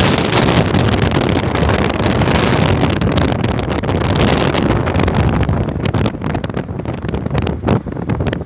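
Strong wind buffeting the microphone in gusts, a loud rumbling rush that eases somewhat near the end.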